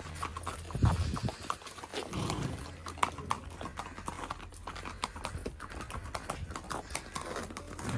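Horse hooves clip-clopping on a paved path as horses walk, an irregular run of clops, with a louder low thump about a second in.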